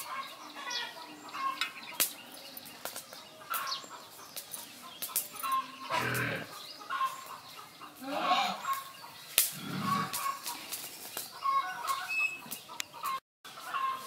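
Chickens clucking, with scattered sharp clicks and knocks.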